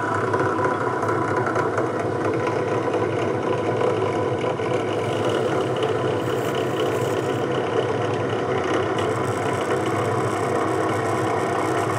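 Bench drill press motor running steadily, its chuck spinning a homemade rivet spinner that is pressed down onto an aluminium rivet in the pivot of kitchen tongs. The spinner is peeling the aluminium off a little rather than rounding it smoothly.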